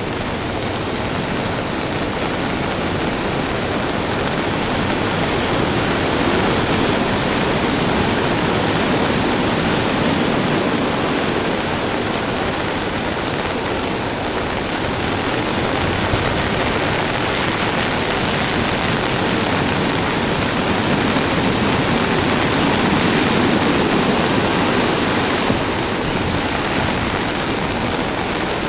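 Heavy storm surf and wind on a rough sea churned up by an approaching typhoon: a continuous loud rush that swells and eases slowly.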